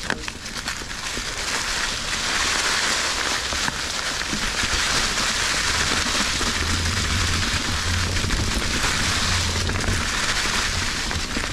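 Mountain bike being ridden: a steady rush of tyre and wind noise on a GoPro microphone, dotted with crackling ticks from the tyres and bike rattle, with low wind buffeting coming and going in the second half.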